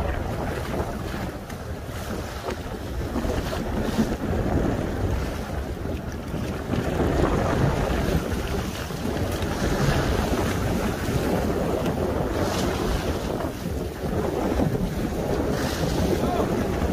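Strong wind on the microphone, a steady low rush, with choppy sea washing against the hull of a small fishing boat.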